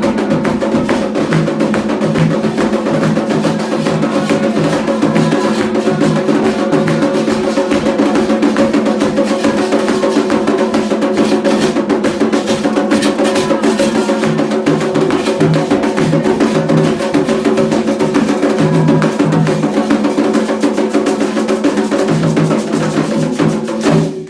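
Candomblé ceremonial drumming: atabaque hand drums playing a fast, steady rhythm with a sharp, clicking percussion part on top.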